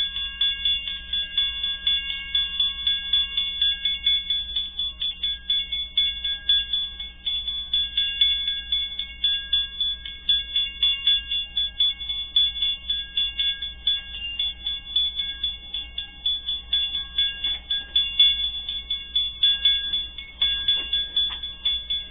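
Level-crossing warning bell ringing in quick, even strokes, signalling an approaching train, over a steady low hum.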